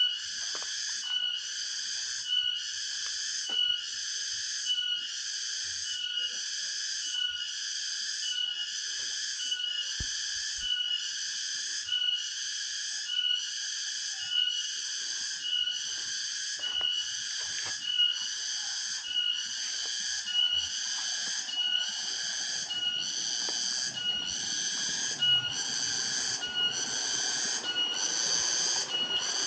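Cicadas (tongeret) calling: a high-pitched buzzing call that pulses in a steady rhythm of about one pulse a second.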